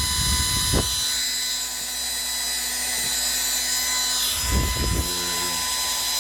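1980s Gillette Supermax 1500 hair dryer running on its heat setting: steady fan-motor noise with a high whine, and two short bumps, one about a second in and one near the end. The owner suspects the fan bearing needs oil.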